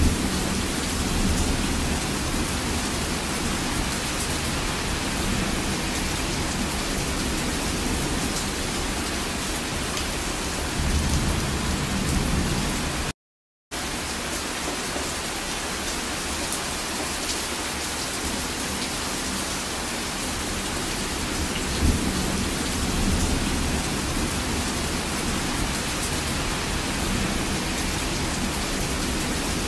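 Rain falling steadily, with low rumbles of thunder three times. The sound cuts out for about half a second near the middle.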